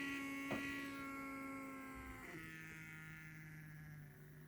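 Closed plastic window humming in the wind: a steady drone with overtones that drops to a lower pitch a little after two seconds. The owner puts it down to wind blowing through gaps under the plastic reveals that were left poorly foamed.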